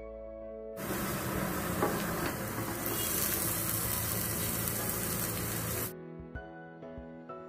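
Onions and green chillies frying with spice powder in a nonstick pan, sizzling as a wooden spatula stirs and cubes of cooked potato are tipped in. The sizzle starts about a second in and cuts off suddenly near six seconds, with soft background music before and after.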